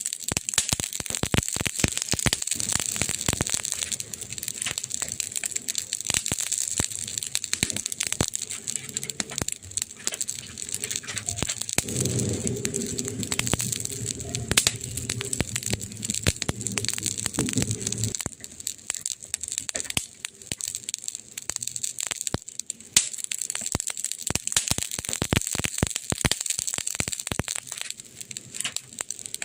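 Wood fire crackling and popping: dense, irregular sharp pops over a steady hiss. A low steady hum joins about twelve seconds in and stops about six seconds later.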